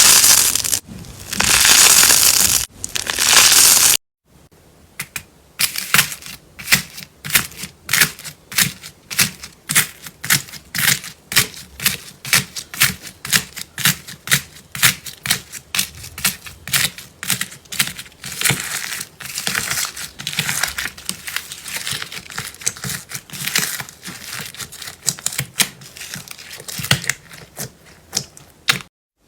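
Crunchy ASMR slime being handled up close. It begins with a few seconds of loud crinkling and crushing. After a sudden cut it becomes a long run of sharp crackles and pops, about two to three a second.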